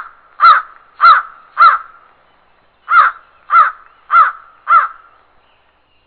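A crow cawing: two runs of four harsh caws, about half a second apart, with a pause of about a second between the runs.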